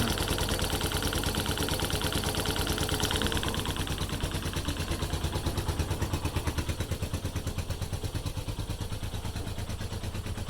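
Freshly rebuilt Viper 150 motorcycle's single-cylinder four-stroke engine idling steadily, with a light tapping that the mechanic is unsure is normal.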